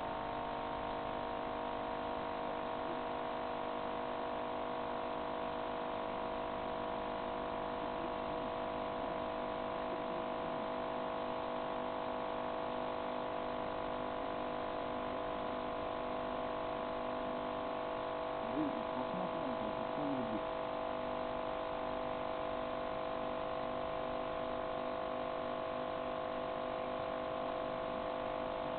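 Steady electrical hum made of several fixed tones, with faint brief voice-like sounds about 18 to 20 seconds in.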